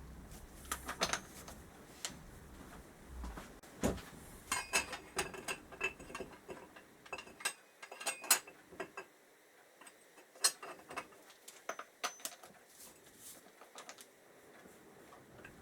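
Irregular light metallic clicks and clinks of tools and engine parts being handled during fitting of the motorcycle engine's generator rotor.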